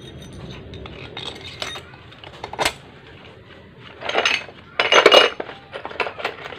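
Small loose metal parts and tools clinking against each other and against metal as they are handled: scattered light clinks, one sharp clink a little past halfway, and louder rattling bursts about four and five seconds in.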